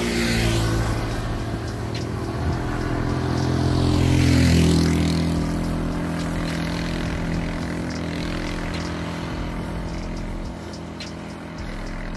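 A motor vehicle's engine running as it passes on the road, getting loudest and rising in pitch about four and a half seconds in, then carrying on steadily.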